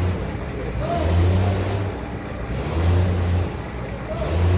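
Sawmill bandsaw machinery running over a steady noisy din. A low hum from the machine comes and goes three times, in stretches of about half a second to a second.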